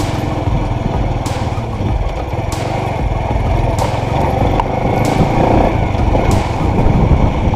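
Kawasaki Bajaj CT100 motorcycle's single-cylinder four-stroke engine running steadily while being ridden. A light sharp click recurs about every second and a quarter.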